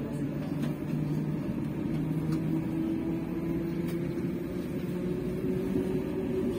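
Class 754 diesel locomotive's six-cylinder ČKD engine running with a steady hum, heard through the glass from the coupled coach.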